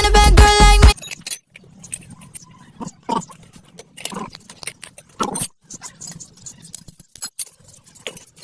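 Music for about the first second, cutting off suddenly; then scattered light metallic clinks and knocks, with a few louder ones, as metal tools and parts are handled.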